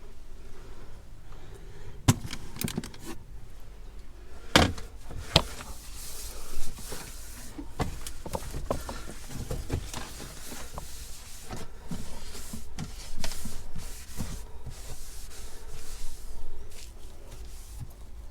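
A motorhome fridge being cleared out and cleaned: a string of clunks, clicks and rattles as containers, shelves and packaging are handled and moved. The loudest knocks come a little after 2 seconds, at about four and a half seconds and at about six and a half seconds.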